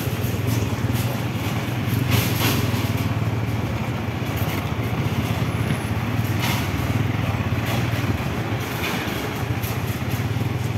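Motorcycle engine running steadily at an even, low speed while moving over a rough dirt street, with a few knocks and rattles.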